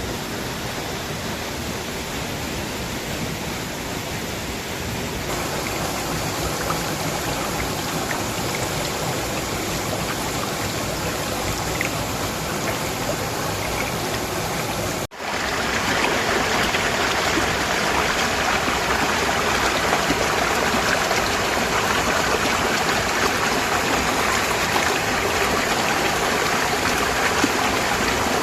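Water falling in a small waterfall, a steady rushing noise. About halfway through it drops out for an instant and comes back louder and brighter.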